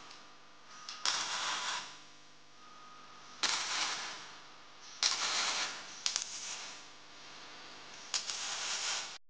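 Electric arc welder tack-welding square steel tubing: five short bursts of crackling arc, each about a second or less, with brief pauses between them.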